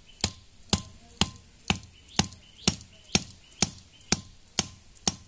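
A machete knocking down on the top of a green bamboo stake, driving it into the ground: a steady run of about eleven sharp knocks, roughly two a second, each with a faint short ring.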